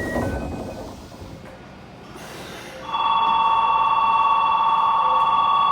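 Station platform departure bell ringing continuously at two close pitches, starting about three seconds in, as the train stands at the platform before the doors close. Before it, a mechanical noise fades out in the first second.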